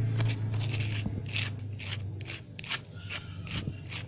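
Green plastic spatula scraping wet spice paste out of a bowl onto a raw tilapia. It makes a quick series of short scrapes, about two or three a second.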